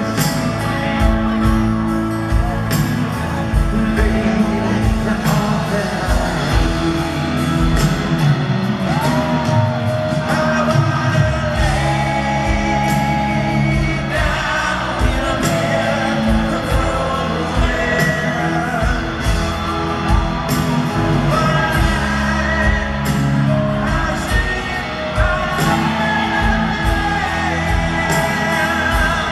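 Live rock band playing with a male lead singer, drums keeping a steady beat, heard in an arena with the crowd close by. Fans shout and whoop over the song.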